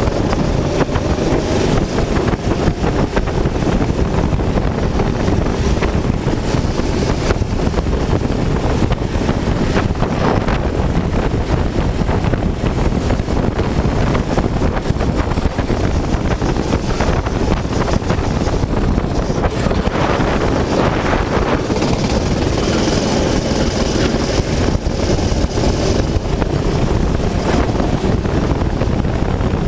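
Racing kart engine running hard, its pitch rising and falling as the kart accelerates and slows through the corners, under heavy wind buffeting on the onboard microphone.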